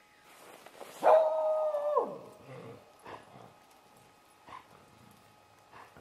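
A dog's long, steady whine lasting about a second that drops in pitch as it ends, followed by four or five short, faint yelps.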